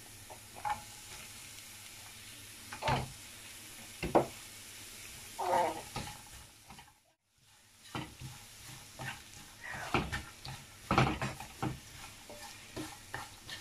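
Wooden spatula scraping and knocking against a nonstick frying pan while chopped onion is stirred into frying grated beetroot, with a light sizzle underneath. The sound drops out briefly about halfway through.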